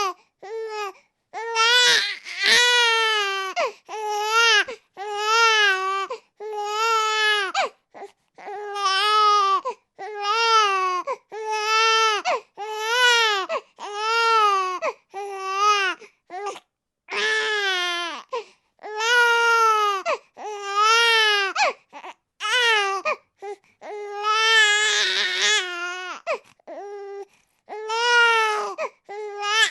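Baby crying hard: a steady run of wails, roughly one a second, each with a short breath between, some turning rough and strained past the middle.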